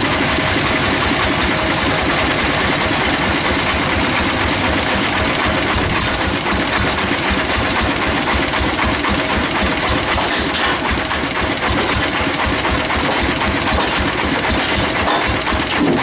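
Sawmill machinery running steadily: an engine drone with a fast, even low pulse and a faint steady hum above it.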